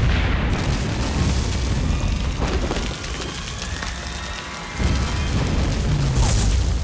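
Film sound-effect grenade explosions: a heavy, rumbling blast that carries on, easing off in the middle, then a second loud blast about five seconds in. Background music plays underneath.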